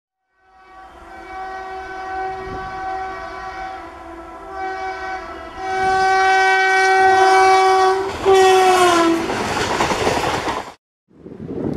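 Electric passenger locomotive's air horn blowing a long single-pitched blast, with a short break, as the train approaches. The horn drops in pitch as the locomotive passes, giving way to the rush and rumble of coaches going by, which cuts off suddenly.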